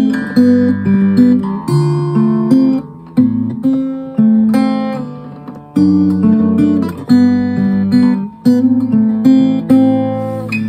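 Veelah Togo S acoustic guitar with fresh strings being played for a tone check: picked chords and single notes ringing out, with one chord left to die away about halfway through.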